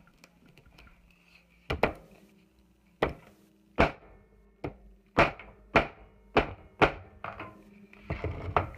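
A hammer striking a tempered glass screen protector about nine times, sharp knocks half a second to a second apart, cracking the glass into spiderwebs.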